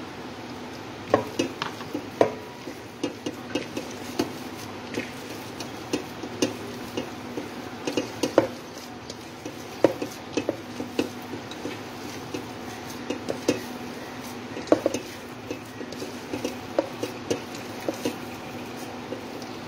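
A steel pot knocks and clinks irregularly as a hand kneads milk-soaked bread into dough inside it, over a steady low hum.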